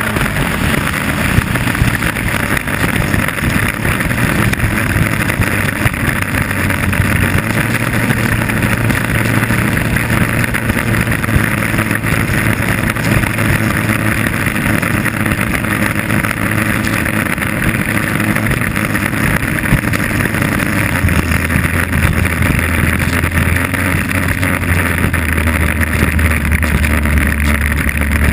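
Inboard engine of a 2.5 Liter Stock hydroplane running at speed, heard from the boat's own deck, with wind and water rushing past. In the last third the engine note drops lower twice as the boat eases off.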